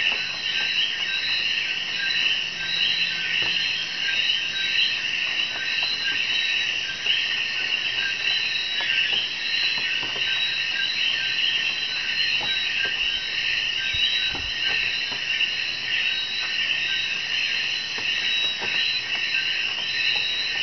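Night chorus of frogs and insects: a steady, dense high-pitched chirping and trilling from many animals at once.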